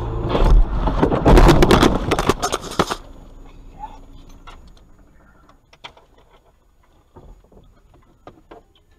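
Car crash heard from inside a Lada's cabin: a loud bang about half a second in, then about two seconds of crashing and crunching that stops suddenly around three seconds in. Scattered quieter clicks and rattles follow.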